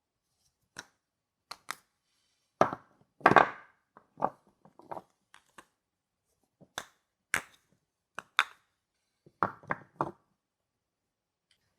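Soap bars and their packaging being handled: scattered light taps and clicks, with a longer rustle about three seconds in and a quick run of knocks near the end.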